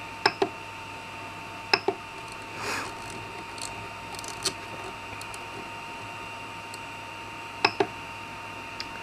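Ender 3 Pro 3D printer's control knob being worked while setting the bed temperature: three sharp double clicks, over a steady whine from the powered-on printer.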